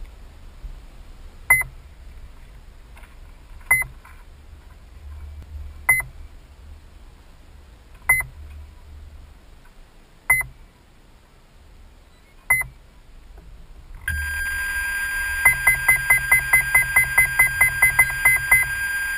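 Electronic beeper sounding single short beeps about every two seconds. About fourteen seconds in, a steady high electronic whine sets in, and rapid beeps come about five a second over it for roughly three seconds.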